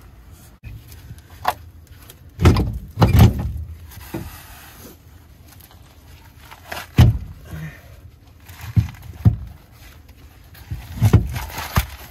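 Irregular heavy thuds and metallic clunks, about seven knocks spread through the span, from working a BMW E36 rear differential loose and out of its subframe.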